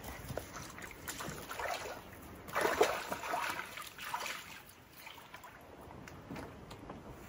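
Canoe paddling: a paddle dipping and water splashing and dripping in a few irregular strokes, the strongest about two and a half seconds in.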